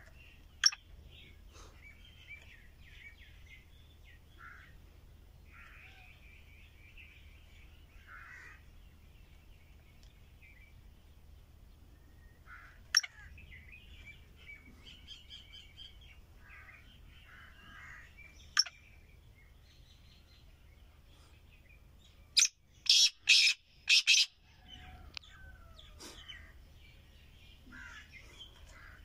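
Caged francolin (teetar) calling: single loud, sharp notes now and then, and a quick run of about five loud notes about three quarters of the way in. Small birds chirp faintly throughout.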